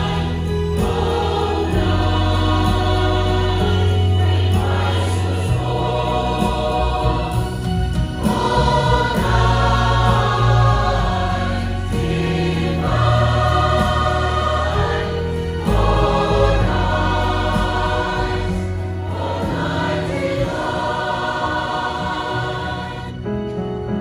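Choir singing through microphones over an accompaniment with a steady low bass line, the voices pausing briefly between phrases every few seconds.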